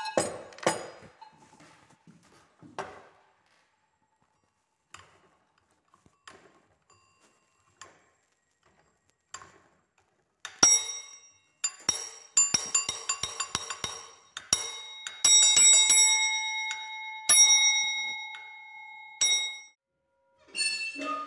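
A small metal bell rung fast, a quick run of clapper strikes for about nine seconds with ringing tones hanging on between them. Before it come several seconds of faint knocks and handling.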